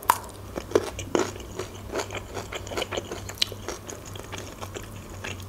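Close-miked crunchy chewing of a bite of pickled cucumber: a string of small crunches and wet clicks.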